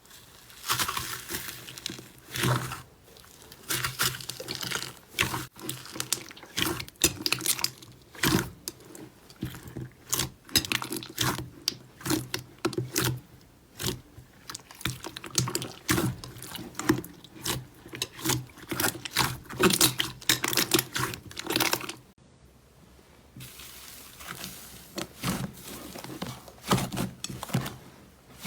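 Slime being squished and pressed by hand: a dense, irregular run of short wet squelches and sticky clicks, with a brief lull about three-quarters of the way through.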